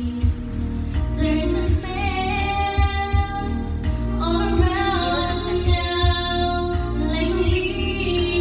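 A woman singing into a handheld microphone, holding long notes with vibrato, over backing music with a steady low beat.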